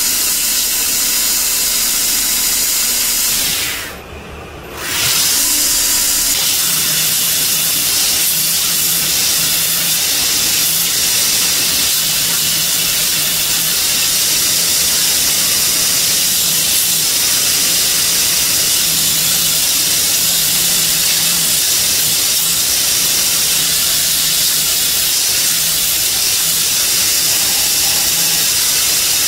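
Belt grinder running, its abrasive belt sanding a knife handle of zelkova wood, brass pins and polycarbonate liners over a small contact wheel: a steady hiss. The sound drops away briefly about four seconds in, then comes back.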